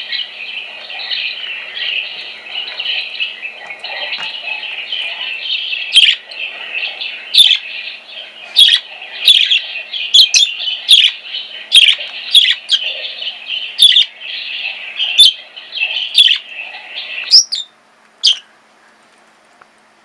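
Budgerigar warbling chatter runs on without a break, and from about six seconds in loud, sharp bird chirps cut through it roughly once a second. Both stop abruptly near the end.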